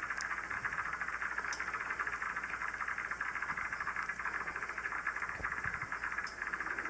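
Amateur radio receiver hissing static from its speaker while being tuned across the 40-meter band, with a few faint clicks. The owner hears hum in it from the nearby inverter.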